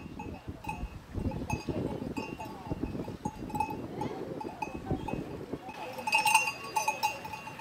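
A cowbell on grazing cattle clanking irregularly, loudest about six seconds in, over crunching steps in snow.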